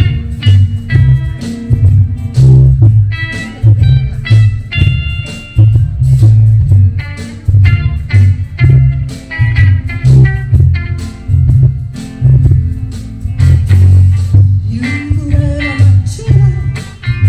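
Live band playing loud amplified music through a PA, with a guitar carrying the tune over a steadily pulsing bass line and regular drum beats.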